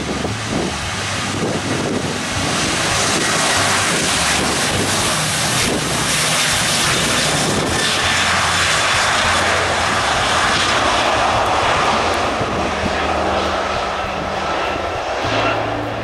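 Boeing 737's jet engines running at high power: a broad roar that swells over the first few seconds and then holds, with wind buffeting the microphone. Soft background music with low notes plays underneath.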